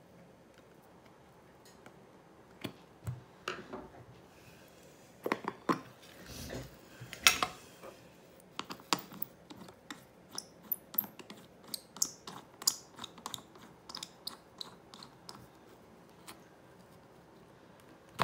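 Lid of a rubber rock tumbler barrel being prised off with a flathead screwdriver, then the inner seal lid worked loose by hand: scattered clicks, scrapes and knocks starting about three seconds in, the loudest about seven seconds in.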